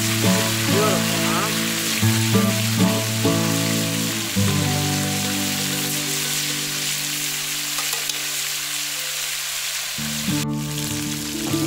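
Breaded chicken deep-frying in hot oil in a cast iron Dutch oven, a steady crackling sizzle, with background music underneath.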